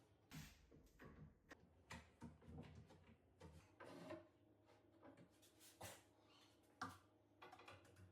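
Faint, scattered light clicks and knocks, with one sharper knock about seven seconds in.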